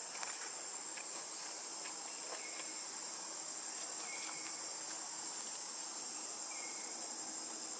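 Steady, high-pitched drone of insects, with three short, faint chirps over it.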